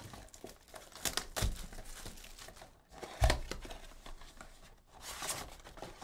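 Tearing and crinkling as a sealed cardboard Bowman University Chrome Sapphire Edition trading-card box is torn open and its lid folded back, in irregular bursts, with two dull knocks about one and a half and three seconds in.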